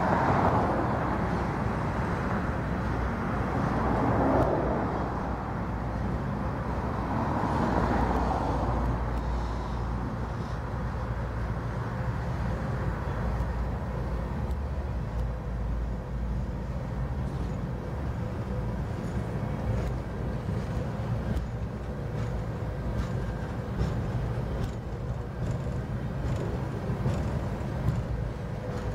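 Freight train of boxcars and refrigerator cars rolling past close by: a steady low rumble of wheels on rail. It swells louder three times in the first ten seconds, with faint ticks later on.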